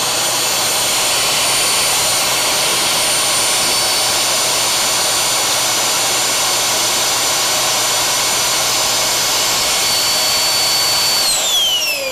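Dyson vacuum cleaner's motor running loud at full speed with a steady high whine. About 11 seconds in it cuts out on its own and spins down with a falling whine.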